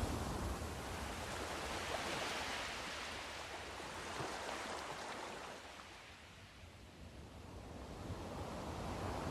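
Sea surf: a wave washes in and slowly recedes, fading to a lull before the next wave builds.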